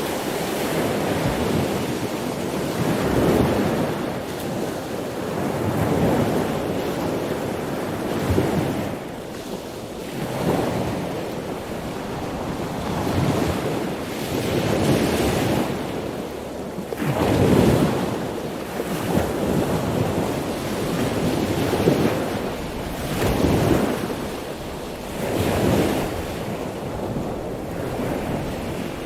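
Ocean waves breaking and washing in on the shore, the surf swelling and falling again every two to three seconds.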